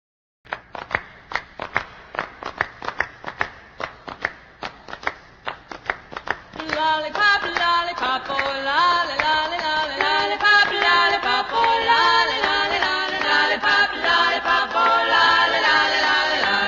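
Opening theme music: a steady run of sharp percussive strikes, about three a second, then about six and a half seconds in a group of voices starts singing in harmony over them.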